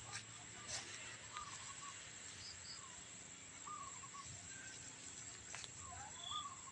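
Faint rural outdoor ambience: scattered short bird calls over a steady high insect drone, with a few clicks.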